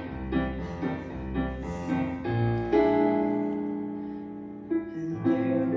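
Piano playing an instrumental passage of a song: a string of struck notes and chords, then a long held chord that slowly fades before the next phrase begins near the end.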